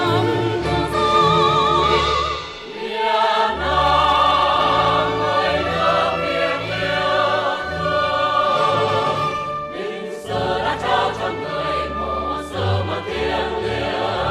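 Mixed male and female choir singing a Vietnamese patriotic song with instrumental accompaniment, its held notes sung with vibrato.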